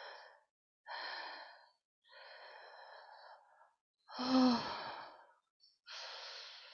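A woman breathing heavily: about four deep, audible breaths in a row. The loudest, about four seconds in, carries a short voiced sigh that falls in pitch.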